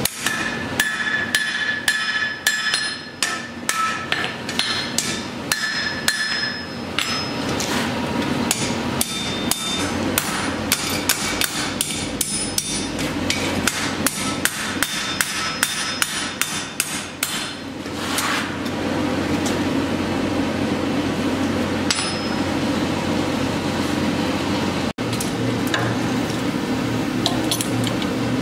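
Hammer blows on red-hot steel on an anvil, struck quickly and evenly, with the anvil ringing after the blows. About eighteen seconds in the hammering stops and a steady mechanical hum carries on, with an odd knock.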